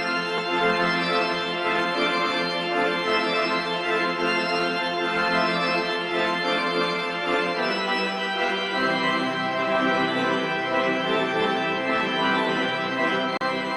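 Organ music: long sustained chords that shift to a new chord about eight seconds in, then fade out near the end.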